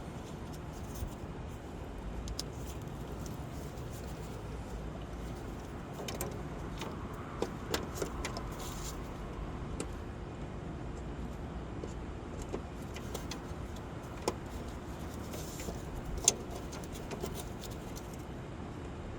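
Scattered light metallic clinks and knocks of tools and suspension parts being handled during a coilover install, over a steady low background noise. A small cluster of clinks comes about a third of the way in, and the sharpest knock comes near the end.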